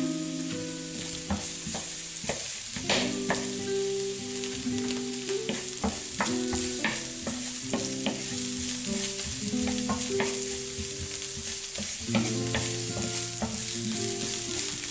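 Sliced onions sizzling in hot oil in a nonstick frying pan while a wooden spoon stirs them, scraping and tapping against the pan. Low held tones that shift in pitch every second or so run underneath.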